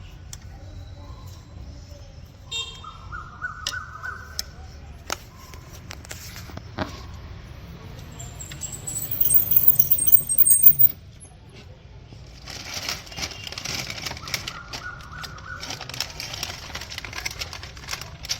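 Scattered metal clicks and clinks of hand tools on a motorcycle heel shifter's mounting hardware, with birds chirping in the background.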